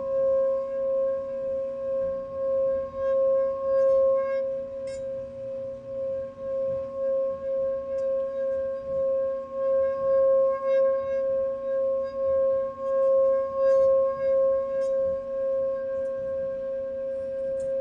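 Singing bowl sounding one sustained high tone with a few overtones above it. Its loudness wavers in a steady pulse throughout.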